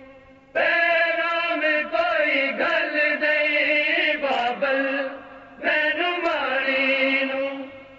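Punjabi noha, a Shia lament, chanted by the voices of a noha-reciting group in long held phrases, with a short breath gap about half a second in and another about five and a half seconds in.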